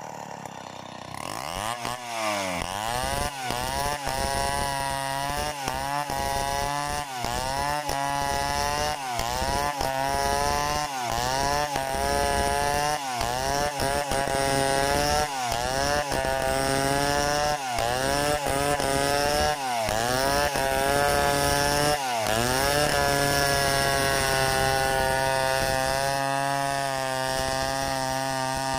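Stihl 070 two-stroke chainsaw ripping a log lengthwise into planks, freehand. It revs up about a second and a half in, then its pitch dips and recovers about every one and a half seconds as the chain bogs in the cut. It holds steadier over the last few seconds.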